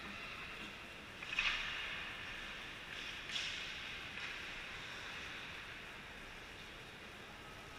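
Youth ice hockey play on the rink: skate blades scraping across the ice, with a few sharp knocks of sticks or puck, the loudest about a second and a half in.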